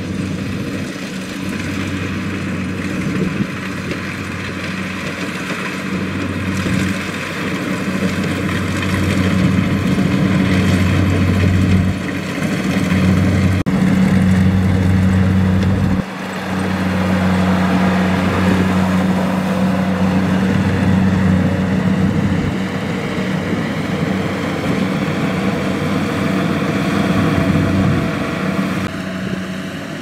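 Kubota combine harvester's diesel engine running steadily under load as it cuts and threshes rice, with the sound changing abruptly a few times where shots are cut together.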